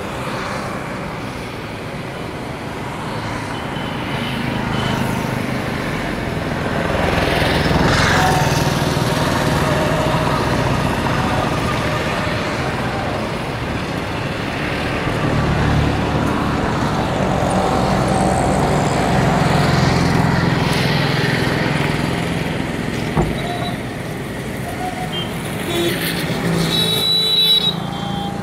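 Road traffic passing close by: motor vehicle engines and tyres swelling and fading. A short, high beeping comes near the end.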